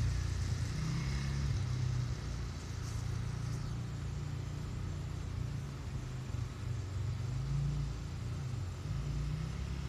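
Small ATV engine running at part throttle, its pitch rising and falling as the rider eases on and off.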